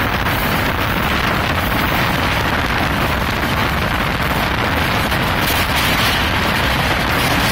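Steady rush of wind buffeting the microphone, mixed with the running rumble of an express train's wheels on the track, heard from an open coach doorway at full speed.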